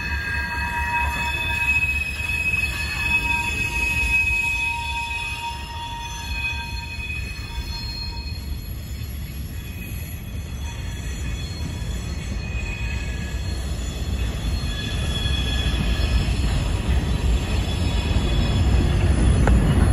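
Freight train's covered hopper cars rolling past close by: a steady rumble of steel wheels on rail, with thin high wheel squeals in the first half that fade out. The rumble grows louder near the end.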